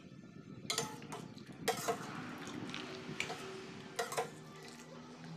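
Metal ladle clinking and scraping against a stainless steel pot while broth and filling are scooped out, a string of sharp clinks about every half second to second.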